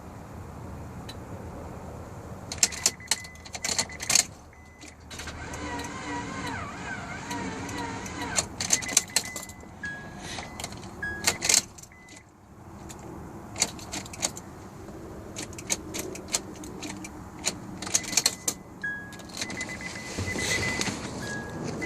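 Keys rattling and a series of sharp clicks as the ignition of a 2000 Honda Accord with a four-cylinder engine is tried, with short high beeps at times. The engine does not crank and gives only a click, a no-start after the intake manifold was cleaned.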